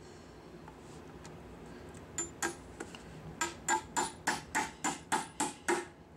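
Hammer driving 2-inch nails into the wooden corner joints of a beehive box: a few light taps, then a quick, regular run of about nine blows, roughly three a second.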